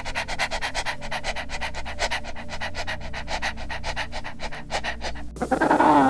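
Dog panting quickly and steadily. About five seconds in, it cuts to a louder braying call from an African penguin, its pitch bending up and down.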